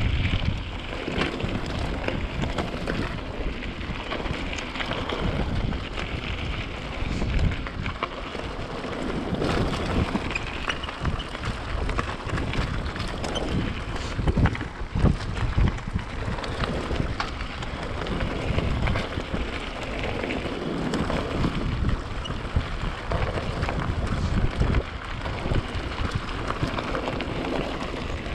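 Wind buffeting an action camera's microphone on a moving mountain bike, with the bike rattling and knocking over rough ground in many short clacks.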